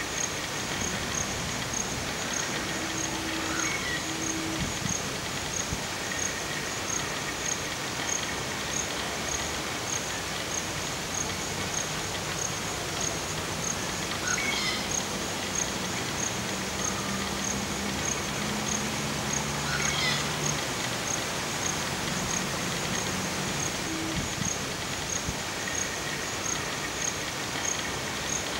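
Outdoor natural ambience: a high-pitched insect chirping steadily about twice a second over a constant hiss, with a few short bird-like calls. A low drawn-out tone comes in for several seconds past the middle.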